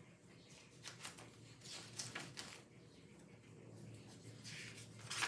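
Faint rustling and a few soft knocks of objects being moved about while searching for something, over a low steady room hum.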